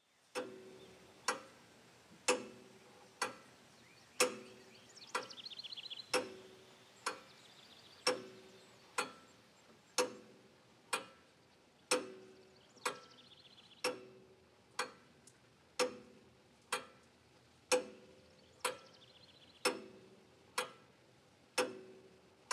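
A clock ticking steadily and slowly, about once a second, each tick with a short ring. Faint high chirping comes in a few times under the ticks.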